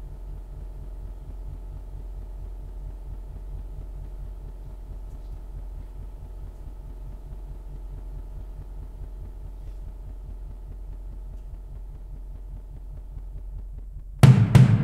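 A steady low hum, then two loud tom-tom strikes close together near the end, ringing on.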